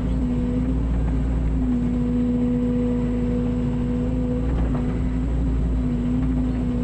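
Engine running steadily at a constant speed, with an unchanging droning hum.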